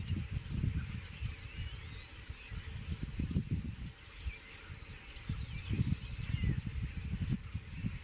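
A flock of common starlings calling: scattered whistles and chatter, many gliding up or down in pitch, over irregular low rumbling.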